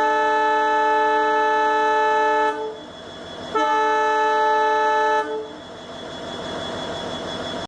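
Indian Railways WDP-4 EMD diesel locomotive's horn sounding a steady multi-note chord, breaking off about two and a half seconds in, then a second blast of about a second and a half. After it a quieter steady noise carries on.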